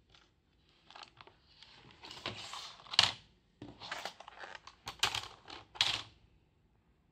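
Logitech K400r wireless keyboard being handled: plastic keys and case clattering and scraping as it is picked up and turned over, with sharper clacks about three, five and six seconds in, the first the loudest.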